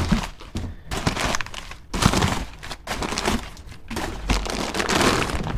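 Crumpled brown kraft packing paper rustling and crinkling in irregular bursts as it is pulled out of a cardboard box.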